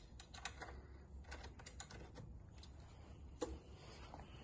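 Faint, irregular light clicks and taps of a hex key and bolt against an aluminium extrusion frame joint, with one sharper tap near the end.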